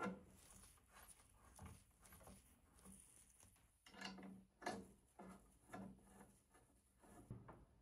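Faint, irregular clicking and rubbing of metal fittings as a gloved hand threads a braided stainless hose's nut onto a brass boiler fitting, with a few sharper ticks partway through.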